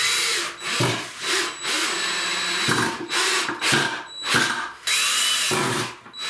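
Cordless drill-driver (Akkuschrauber) running in many short stop-and-start bursts as it drives screws into a wooden frame joint.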